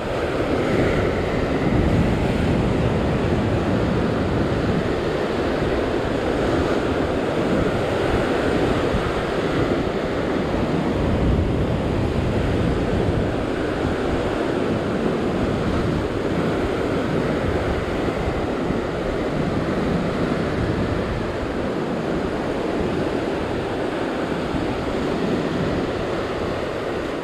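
Ocean surf breaking and washing over a rock shelf: a steady, loud rush of water.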